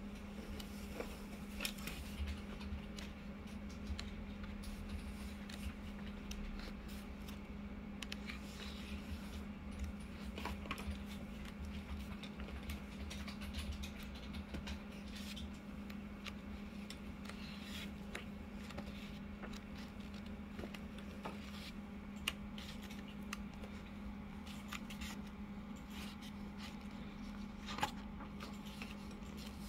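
Pages of a paperback textbook being turned and leafed through by hand: soft, irregular paper rustles and flicks, with a couple of sharper page snaps near the end, over a steady low hum.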